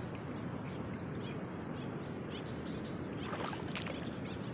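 Steady outdoor background noise in an open grassy field, with faint high chirps repeating every half second or so and a brief louder rustle about three and a half seconds in.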